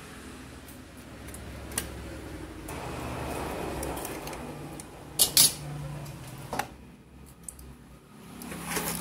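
Small metallic clicks and clinks of a power transistor being handled and set against the metal heatsink of a CRT TV power-supply board, the loudest a pair of sharp clicks about five seconds in, over a low steady hum.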